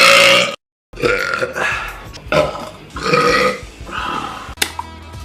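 Loud burping: one burp, a moment of dead silence, then several more burps in quick succession until near the end.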